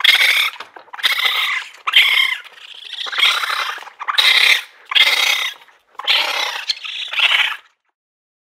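Raccoons calling: about eight harsh, noisy cries in a row, roughly one a second.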